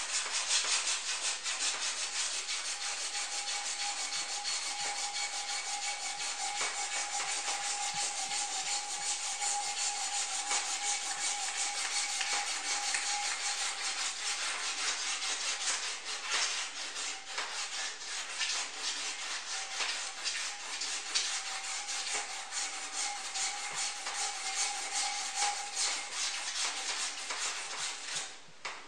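Hand-polishing a thin metal rod of a stone sculpture's support with a strip of polishing material worked rapidly back and forth: a dense, scratchy rubbing to re-shine the metal. A faint squeaky tone comes and goes under it, and the rubbing stops just before the end.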